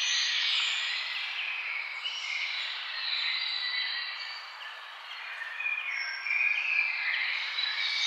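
Many small birds chirping and singing at once in short, overlapping calls over a steady hiss. The birdsong thins out about five seconds in and picks up again near the end.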